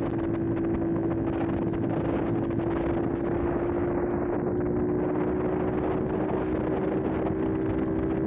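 Honda Monkey's single-cylinder engine running at a steady pace under way, its note creeping slightly higher, with wind buffeting the microphone.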